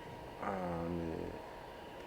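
A man's low drawn-out hum, just under a second long, starting about half a second in, with a faint steady high tone behind it.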